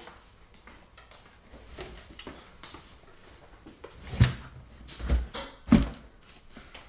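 Cardboard moving boxes being handled and set down: light knocks and rustles, then three heavy thumps in the second half.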